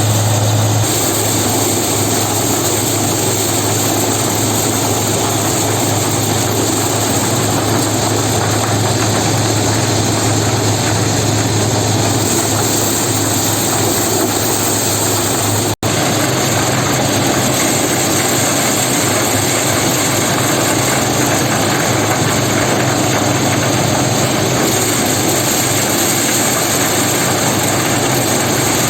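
An engine-driven farm machine running steadily with a strong low hum, its noise unchanging; the sound breaks off for an instant about halfway through and carries on the same.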